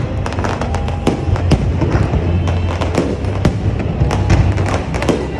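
Fireworks display: a rapid, irregular run of sharp bangs and crackles from bursting shells, over steady music with a deep bass.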